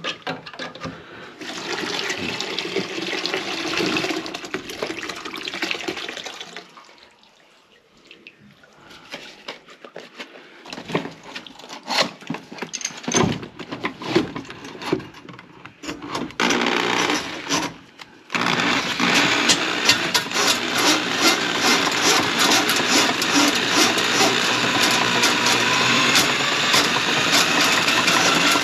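Water running and splashing in the sink for the first few seconds, then scattered knocks and clatter. About two-thirds of the way in, an electric drain snake starts and runs steadily with a fast, regular rattle, its whine slowly rising near the end, as it works through the clogged kitchen drain.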